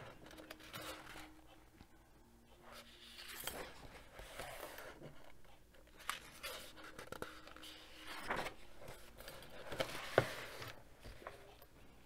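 Faint rustling of paper pages of a paperback coloring book being handled and turned, with a few soft swishes of page and fingers sliding over paper.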